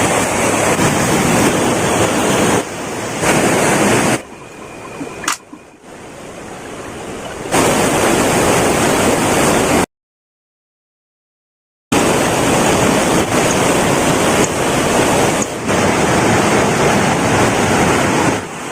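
Heavy rain pouring down as a loud, dense hiss, in several short stretches: it turns quieter for a few seconds about four seconds in, and breaks off into silence for about two seconds near the middle.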